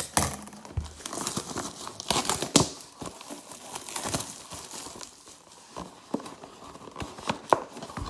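Plastic shrink-wrap crinkling and tearing as it is pulled off a sealed Panini Prizm baseball card hobby box, with irregular crackles and snaps throughout.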